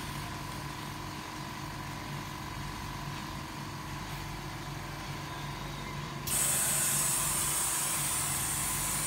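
Polarizer laminating machine running with a steady low hum; about six seconds in, a louder steady hiss starts suddenly and keeps going.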